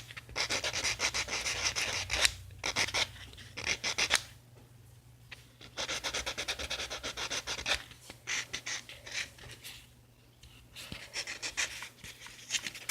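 Nail buffer rubbed quickly back and forth over a fingernail: a scratchy rasp in runs of fast strokes with short pauses between them. The buffer is smoothing down a dried nail-glue patch over a broken thumbnail.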